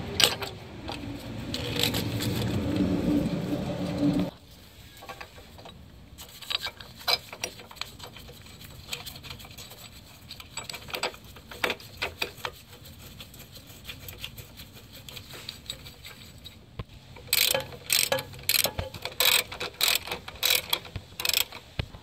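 Hand ratchet clicking as the stabilizer bar bushing bracket bolts are run down, scattered at first, then a run of quick regular strokes near the end. A steady hum fills the first four seconds.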